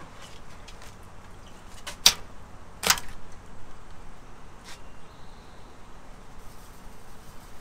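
Blue crabs being dropped into the perforated aluminum basket of a steamer pot: two sharp clanks about a second apart among lighter clicks and rustles of shells against metal.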